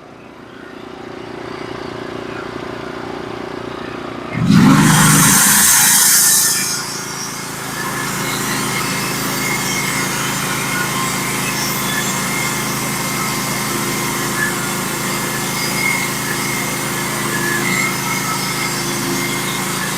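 Norwood HD36 portable bandsaw mill running. Its engine hums steadily, a loud rush comes in about four and a half seconds in and lasts about two seconds, then it settles into steady running with a hiss on top as the band blade saws through a log.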